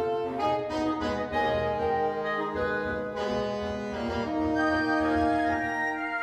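Woodwind ensemble of flutes, clarinets and saxophones playing concert music: held chords with moving melodic lines, changing notes every second or so.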